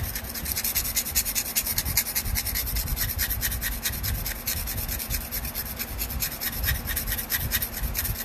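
Steel carving-knife blade rubbed rapidly back and forth on 220-grit sandpaper glued to a wooden board: a steady scratching, several strokes a second, as the broken tip is ground back to a point on its unsharpened back edge.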